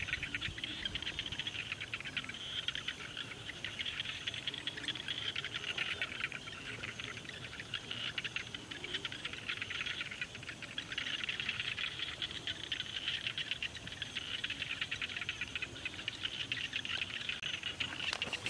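A continuous chorus of insects such as crickets, made of many fast chirps blending into a steady high-pitched trill that swells and eases slightly.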